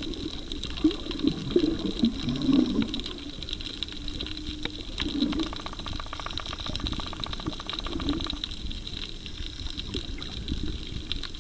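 Underwater sound heard through a camera's waterproof housing: muffled sloshing and bubbling water with scattered sharp clicks. A rapid buzz comes in about halfway through and stops a couple of seconds later.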